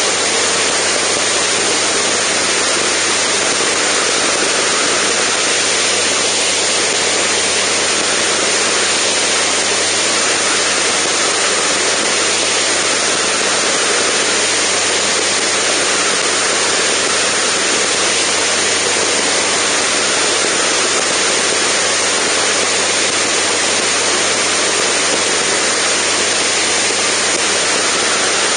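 Steady rush of airflow over the microphone of a camera mounted outside a Zenith STOL CH750 in cruise flight, with the light aircraft's engine and propeller drone as a faint, even low hum underneath.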